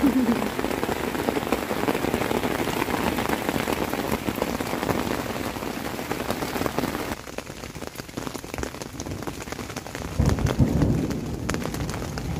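Rain falling on a tent, heard from inside: dense and heavy at first, easing about seven seconds in. Near the end comes a low rumble of thunder.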